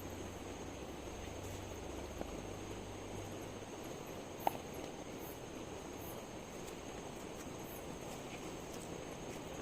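Insects chirring steadily over a constant hiss of outdoor background noise, with one sharp click about four and a half seconds in.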